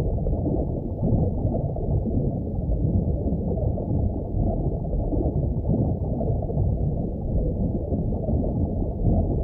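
Steady, muffled low rush of underwater water noise, with no distinct whale calls standing out.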